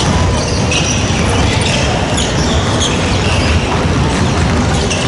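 Large indoor gym ambience: a steady low rumble with short, high sneaker squeaks on the hardwood basketball court.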